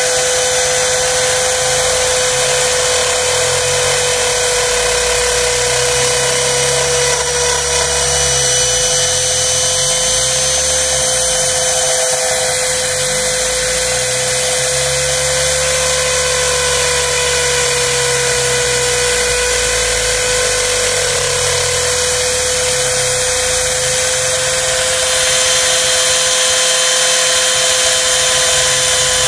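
Home-built CNC router cutting a groove in plywood: the spindle and bit run with a steady high whine, over a lower hum from the machine that shifts in pitch every few seconds as it moves.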